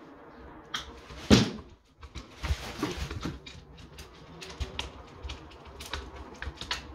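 Small irregular clicks and taps of a screwdriver and wires against a plastic wall socket and its back box during electrical wiring, with one louder knock about a second in.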